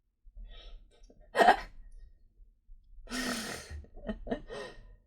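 A person's breathy vocal sounds: a short, sharp cough-like burst about a second and a half in, then a long sigh and a few short breaths near the end.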